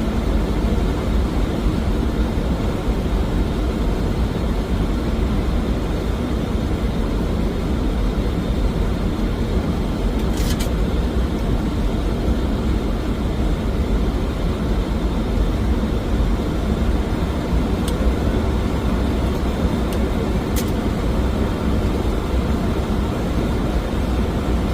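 Steady airflow and engine noise inside a Boeing 737NG airliner descending on approach, with two faint ticks about ten and twenty seconds in.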